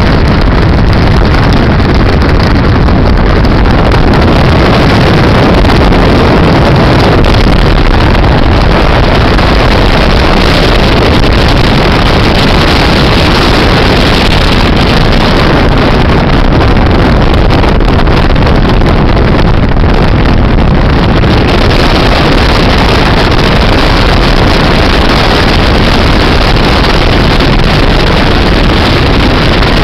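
Steady loud rush of a car driving at speed: wind buffeting the microphone at the window together with road and engine noise.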